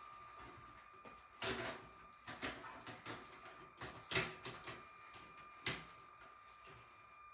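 LEGO Crocodile Locomotive model running on plastic track: a steady high motor whine with irregular sharp plastic clicks and clatters, the loudest about four seconds in.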